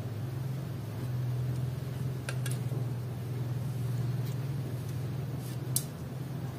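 A steady low hum, with a few faint clicks of a metal slotted spatula against a ceramic plate as stir-fried squid is served.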